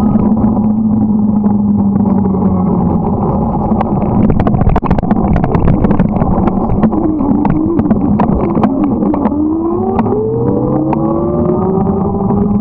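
Motorcycle engine running under way. Its pitch holds steady, drops and wavers about halfway through, then climbs steadily near the end as it accelerates. Scattered sharp clicks run through it.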